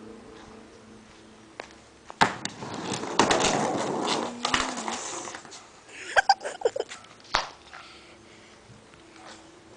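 Skateboard wheels rolling on concrete, starting with a sharp clack about two seconds in. Later comes a quick run of knocks as the board clatters away under a fall.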